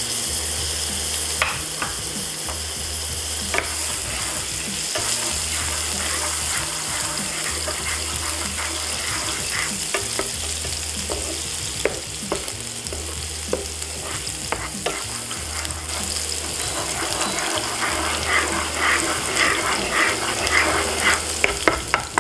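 Minced ginger, garlic and green chilli sizzling in hot oil in a non-stick frying pan, with a wooden spoon stirring and clicking against the pan. The sizzle turns livelier and crackly in the last few seconds, over a low hum that cuts in and out every couple of seconds.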